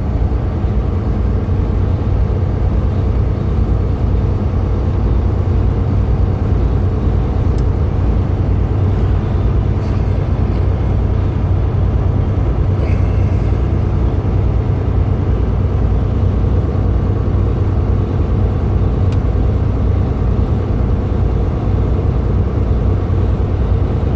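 Semi truck's diesel engine running with road noise, heard inside the cab while driving: a steady low drone.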